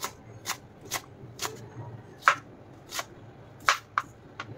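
Chef's knife chopping a small red onion on a plastic cutting board: sharp knocks of the blade hitting the board, about two a second, unevenly spaced.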